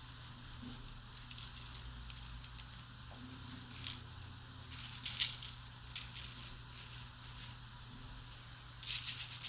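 Granulated sugar sprinkled by hand onto peanut butter cookie dough on a parchment-lined baking sheet: a fine, scattered ticking of sugar grains landing, coming in spells with two short lulls, over a low steady hum.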